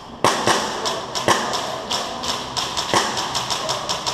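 Airsoft gunfire: a string of sharp, irregular cracks and taps from shots and BBs striking, with a few louder hits among fainter ones.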